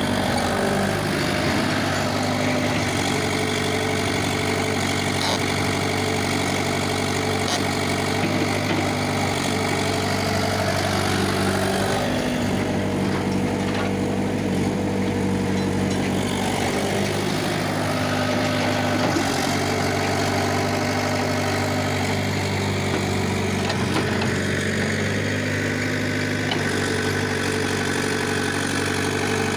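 Caterpillar E70B hydraulic excavator's diesel engine running steadily while it digs and loads soil, its note shifting slightly a few times as the arm works.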